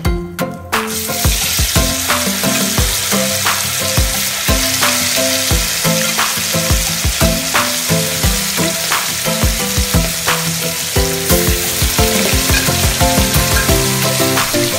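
Spices and a yellow spice paste sizzling in hot oil in an aluminium wok, stirred with a metal spatula; the sizzle starts about a second in and carries on steadily.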